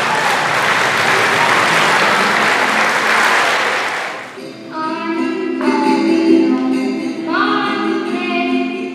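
Audience applauding for about four seconds; the applause dies away and music with a singing voice begins.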